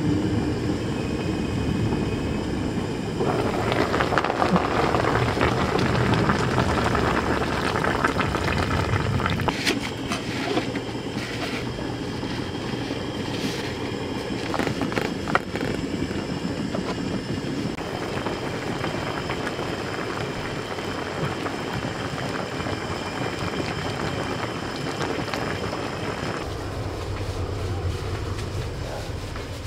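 Square pot of kimchi and pork back ribs boiling under its see-through lid: a steady bubbling hiss, with a few sharp clicks in the middle.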